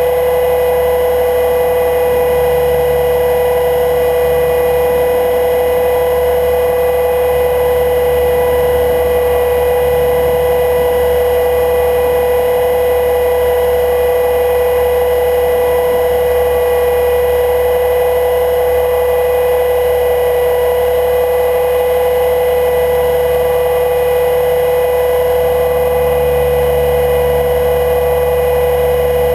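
HK 500 GT electric RC helicopter in flight, heard from a GoPro mounted on its frame. Its Scorpion 1600KV brushless motor and gears give a steady high whine at constant head speed, over a low rumble.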